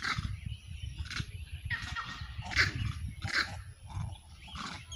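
Monkeys screeching during a fight: a string of short, high calls, roughly one or two a second, over a low rumble.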